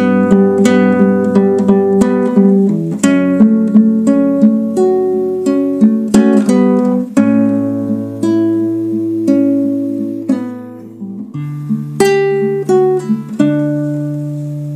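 Instrumental music on a plucked string instrument, most likely acoustic guitar, picking notes and chords over held low notes. It ends on a last chord that rings out and slowly fades.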